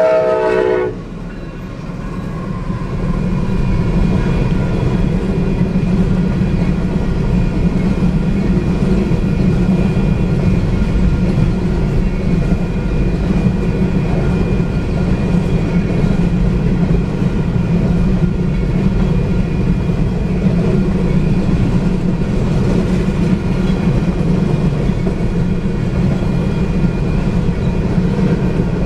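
A locomotive horn chord cuts off about a second in. The train then arrives at the crossing, and a northbound empty grain train of covered hopper cars rolls through with a loud, steady rumble and rail clatter.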